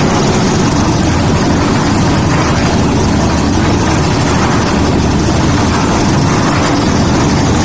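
Concrete mixer machine with hopper running steadily, its engine holding a constant speed.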